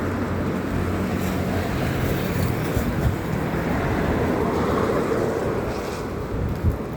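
Wind rushing over the microphone with traffic on a rain-wet road: a low engine hum over the first couple of seconds and a vehicle swelling past about five seconds in.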